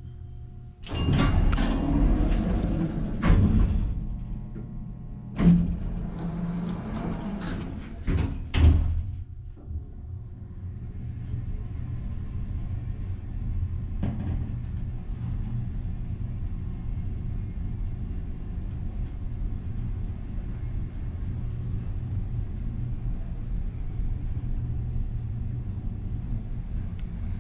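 1970s Otis traction elevator: its doors slide open about a second in and close again about five seconds later, with a brief ring as they open. From about ten seconds in, the car runs with a steady low rumble as it travels between floors.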